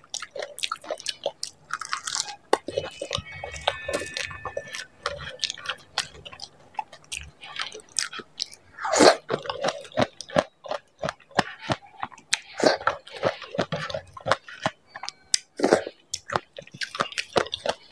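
Close-miked biting and chewing of a crisp, yogurt-filled dahi puri: a run of many short, sharp crunching and smacking clicks, busiest about halfway through.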